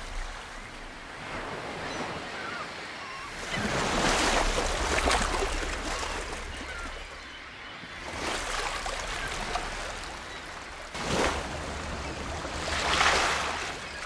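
Sea water washing and splashing in several swells, with a sudden splash about eleven seconds in that builds to the loudest surge near the end, over a low wind rumble on the microphone.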